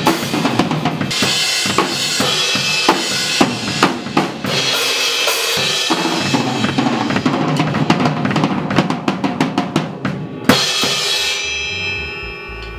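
Sonor rock drum kit played hard and fast, kick, snare and cymbals, with one big crash about ten seconds in that rings out and fades.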